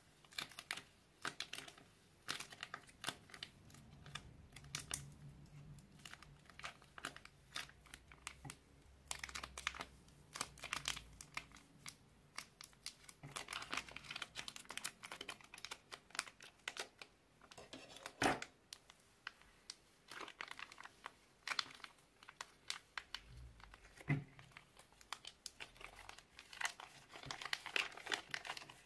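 Thin plastic piping bags crinkling and rustling as they are squeezed, snipped open with scissors and torn away from kinetic sand, with a few sharp clicks.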